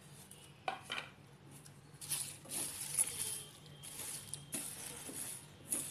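Slotted plastic spatula stirring whole spices, mostly coriander seeds, as they dry-roast in a hot frying pan. The seeds rattle and scrape against the pan in uneven strokes, with a few sharper clicks.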